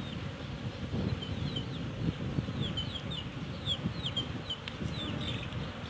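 Short, high, falling bird chirps repeating a few times a second, over the low hum of Asian honeybees (Apis cerana) swarming on a hive frame.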